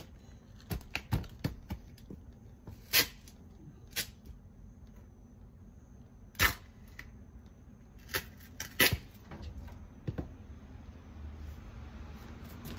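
Irregular sharp knocks and clicks, about ten in all, from things being handled and packed into a box. The loudest come about three seconds in, about six and a half seconds in, and near nine seconds.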